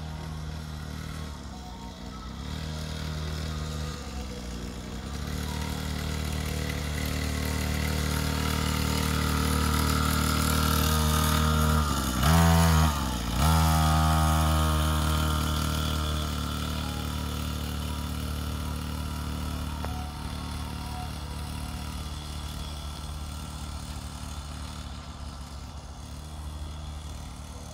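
Small 50cc kids' dirt bike engine running steadily, growing louder as it approaches and loudest as it passes close about halfway through, with a brief swoop in pitch, then fading as it rides away.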